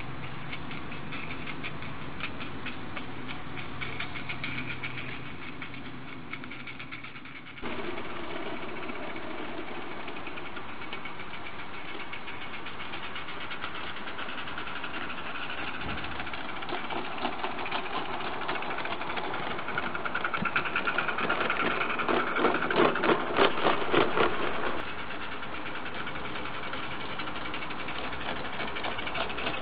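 Accucraft Caledonia live-steam garden-railway locomotive running with a rapid, busy chuffing as it hauls its coaches. The sound grows louder in the second half, then drops suddenly near the end.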